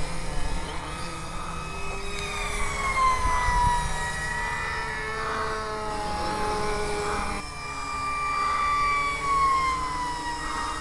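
Homemade quadcopter's electric motors and propellers whining in flight, several pitches at once. The pitch slides down about two seconds in and again near the end.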